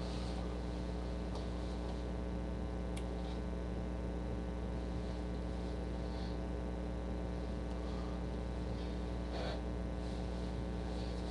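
Steady electrical mains hum, with a few faint clicks and rustles.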